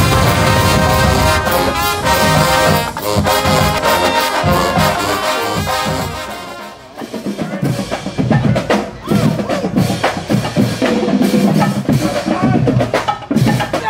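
Marching band brass playing loudly with drums. About seven seconds in the music drops briefly, then gives way to a drumline's sharp, choppy drum hits.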